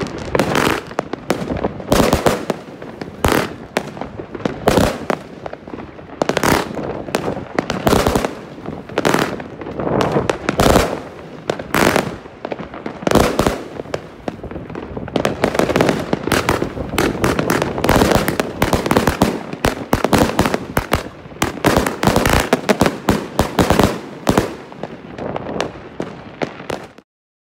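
Evolution Fireworks Dragon Box 3, a 100-shot compound fireworks cake, firing in quick succession: irregular launch thumps and aerial bursts, often less than a second apart. It cuts off suddenly near the end.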